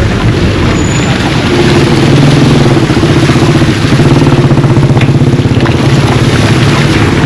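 A motor vehicle's engine running close by: a steady, fast-pulsing low hum that comes up about a second and a half in and holds to near the end, over constant street and wind noise.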